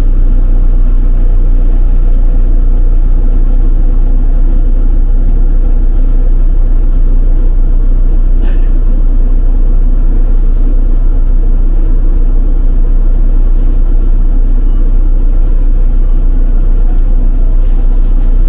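A city bus driving along, heard from inside its cabin: a loud, steady low rumble of engine and road with a faint constant hum over it.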